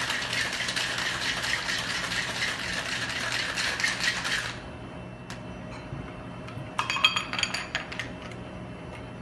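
Big ice cubes rattling hard in a metal cocktail shaker as a cocktail is shaken, stopping abruptly about four and a half seconds in. Around seven seconds in comes a short run of bright clinks of ice and metal against glass as the drink is poured out of the shaker tin into a glass.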